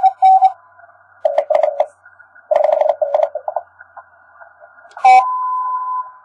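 Morse code from an Index Labs QRP+ transceiver on 10-metre CW. The operator's own keyed sidetone ends about half a second in; then come two short runs of received CW dits and dahs at a lower pitch, in receiver hiss. Near the end there is a click, then a steady tone held for about a second.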